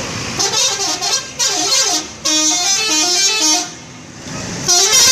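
A bus's multi-tone 'telolet' horn playing a tune, its notes stepping down and back up. One phrase lasts about three seconds, with a short break in the middle, and a second phrase starts near the end.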